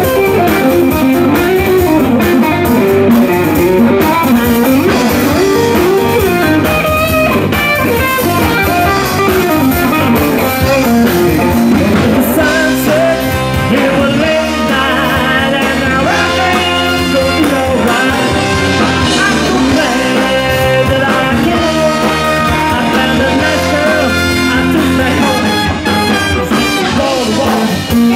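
Live rhythm and blues band playing an instrumental break: an electric guitar solo with bent notes over bass and drums, with the trumpet section coming in about halfway through.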